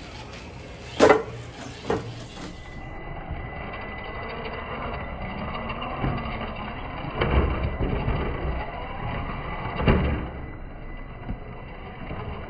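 Traxxas TRX-4 Sport RC crawler climbing over concrete roof tiles: its electric motor and gear drivetrain whirring steadily as the tyres scrabble and knock on the tiles. Two sharp knocks come in the first two seconds, and the drive gets louder for a while in the second half.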